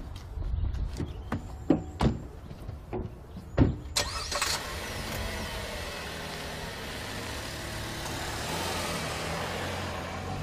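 Car doors opening and shutting, with a few sharp knocks and a louder slam about four seconds in. The Chevrolet Cruze's engine then runs steadily as the car pulls away and passes close by, growing a little louder near the end.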